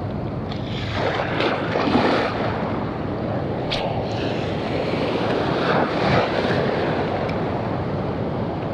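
Wind buffeting the microphone over the wash of surf, a steady rushing noise that swells and eases. There is one sharp click about four seconds in.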